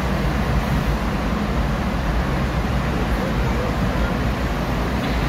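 Steady road and engine noise heard from inside a car's cabin while it drives through a road tunnel, with a strong low rumble and no separate events.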